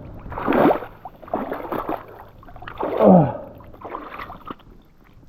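River water splashing and sloshing around someone wading through a strong current, in surges about once a second. A short grunt about three seconds in.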